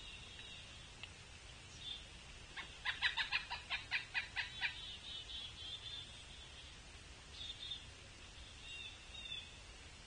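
Pileated woodpecker calling: a rapid, even series of about a dozen loud notes, about six a second, lasting about two seconds a few seconds in. Under it runs a fainter steady high trilling.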